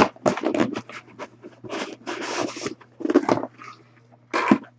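Cardboard shipping box being opened and handled: flaps and packing material rustling and scraping in irregular bursts, with a few sharp knocks as a smaller box is lifted out.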